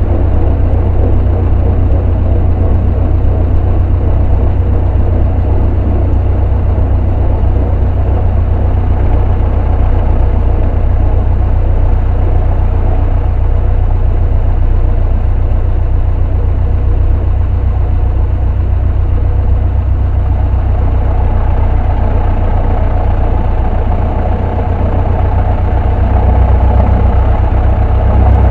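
Cessna 152's four-cylinder Lycoming O-235 engine and propeller running steadily, heard from inside the cabin, growing a little louder near the end.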